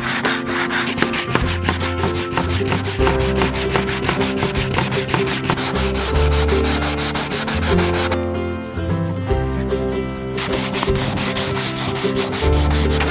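Hand sanding a steel framing square with a sanding block: rapid back-and-forth scrubbing of abrasive on steel, cleaning the face so the white paint stays only in the stamped markings. The strokes stop for about two seconds around eight seconds in, then start again.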